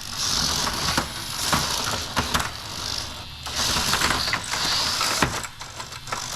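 Two Hexbug mini battle bots, small remote-controlled toy robots, whirring their little electric motors and clattering plastic against each other, with several sharp knocks as they collide.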